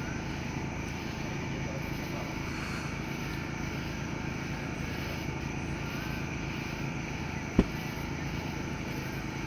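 A motor running steadily with a low, even drone, broken once by a single sharp click about three quarters of the way through.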